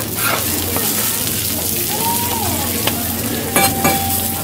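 Okonomiyaki sizzling steadily on a flat iron teppan griddle, with a metal spatula scraping and clinking against the griddle; two sharp clinks a little after three and a half seconds are the loudest sounds.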